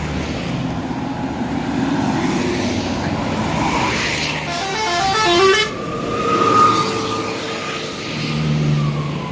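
Bus telolet horn playing a quick run of short stepped notes about halfway through, then one long held tone for about three seconds, over the rumble of a passing bus engine.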